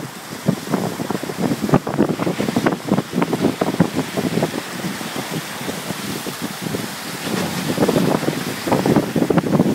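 Wind buffeting the microphone in irregular gusts over the rush and splash of water past the hulls of a carbon performance catamaran under sail at speed.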